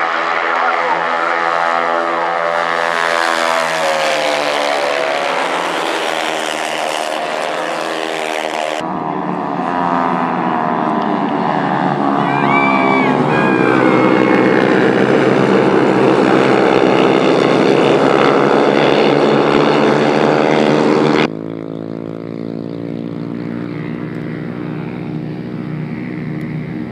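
A pack of 110 cc racing motorcycles running hard at high revs, their engine pitch rising and falling through gear changes as they pass. The sound jumps abruptly twice, about nine seconds in and a little past twenty seconds.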